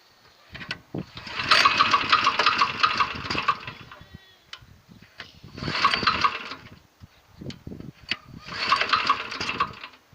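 Walk-behind tractor engine heard in three short bursts, the first about three seconds long and the other two under two seconds, with near quiet between them.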